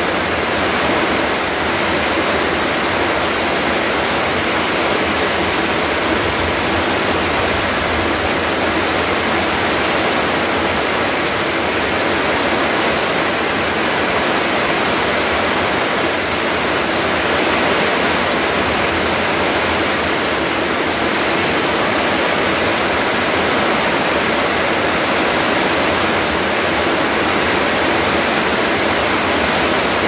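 Heavy rain pouring steadily onto trees, plants and wet paved ground: a loud, even hiss of falling water with no breaks.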